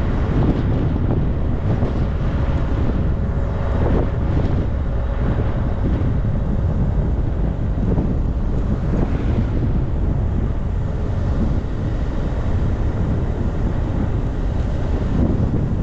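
Wind buffeting the microphone of a camera on a moving vehicle, over a steady low rumble of road and engine noise.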